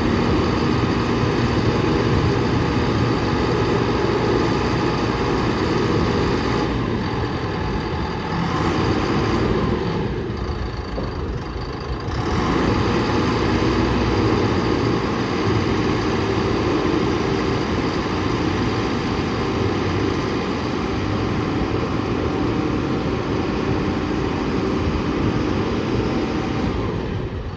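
Diesel engine of a self-loading concrete mixer truck running steadily at a low, even speed, with short breaks in the sound about seven seconds in and again around ten to twelve seconds.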